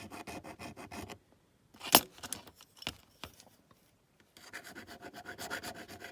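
Small hand file scraping quick short strokes along a zinc-alloy die-cast toy body, taking down a casting line. The filing comes in two runs, stopping about a second in and starting again after about four seconds, with a sharp click and a few light ticks in between.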